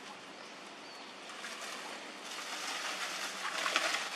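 Steady outdoor noise with a crackling rustle that builds over the last two seconds and is loudest near the end.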